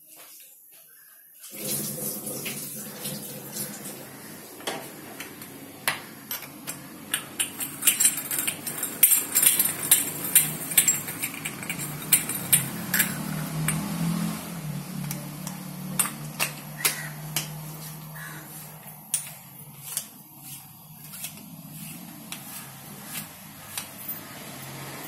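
Brass chakli press being handled: quiet for about a second and a half, then a run of sharp metal clicks and clinks, thickest in the middle, as the dough-filled cylinder is closed and its screw plunger fitted and turned.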